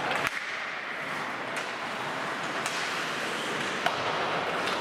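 Ice hockey play on a rink: a steady hiss of skates and arena noise, broken by five sharp clacks of sticks and puck, the loudest about four seconds in.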